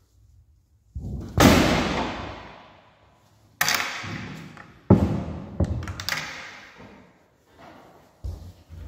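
Restroom doors banging shut several times, the first and loudest about a second in. Each bang rings on and fades over a second or two in the tiled room.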